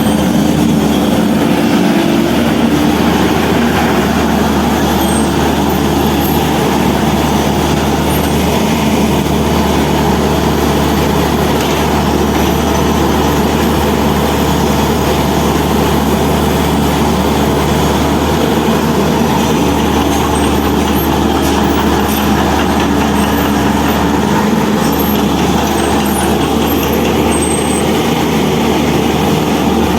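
Heavy construction machine's diesel engine running steadily at a constant speed, loud and close.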